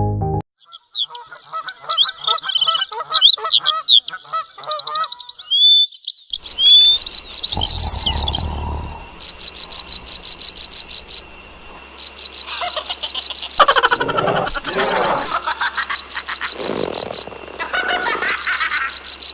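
Birds chirping and warbling for the first few seconds, then a cricket's rapid, evenly pulsed chirping with short breaks, joined now and then by frogs croaking.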